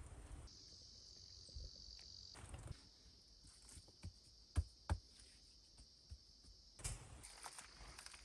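Faint steady high-pitched insect chorus, broken off briefly once, with a couple of sharp knocks near the middle.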